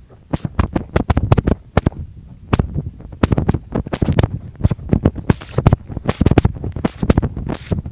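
Irregular scraping and thumping, several strokes a second: footsteps while walking and rubbing handling noise on a phone microphone that is being carried.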